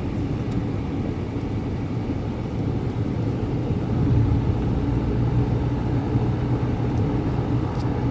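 A moving car heard from inside the cabin: a steady low rumble of engine and road noise.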